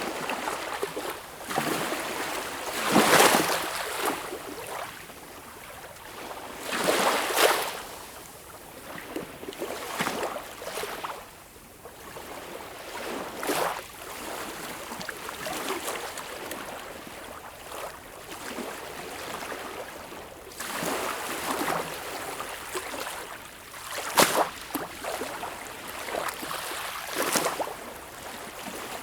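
Sea waves washing in on a shore, a steady hiss with a louder surge every few seconds as each wave breaks.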